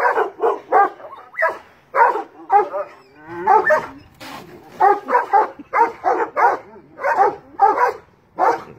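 Large dogs barking repeatedly in short, loud barks, about two a second, with a short gap a little under halfway through.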